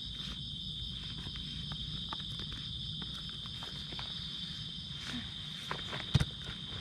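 Steady high, unbroken chirring of night insects such as crickets, over a low background rumble, with scattered faint clicks and one sharp knock about six seconds in.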